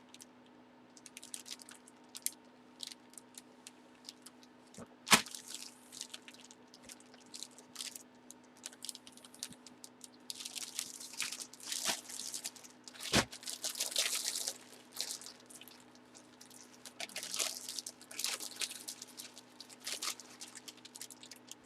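Trading cards and their plastic sleeves and holders being handled: intermittent crinkly plastic rustling, with two sharp clicks, one about five seconds in and one about thirteen seconds in.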